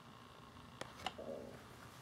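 Faint handling sounds: two light clicks about a second in, followed by a brief soft rustle, as the linen cross-stitch fabric is held up and shifted in the hands.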